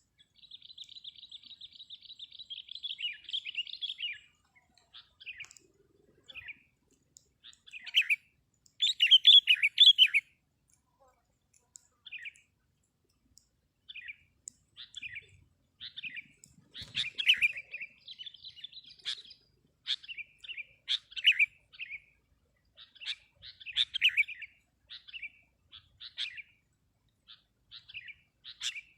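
Sooty-headed bulbuls (kutilang) calling: a fast, steady trill for about the first four seconds, then a run of short, bubbly chirping phrases with brief gaps between them.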